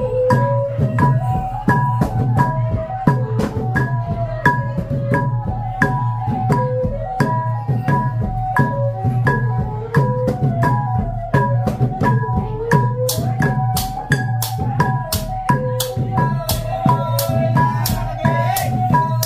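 Khmer chhay yam ensemble playing: drums and small cymbals strike a steady, quick beat under a wavering melody line. Louder cymbal crashes join about two-thirds of the way through.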